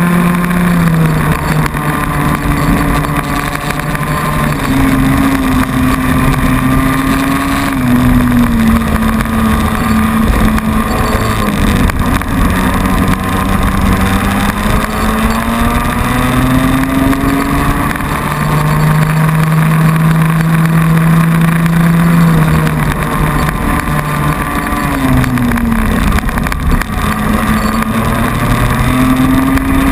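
Cadet kart's small single-cylinder two-stroke engine at racing speed, heard from on board, its pitch climbing along the straights and dropping away into the corners several times, with wind rushing over the microphone.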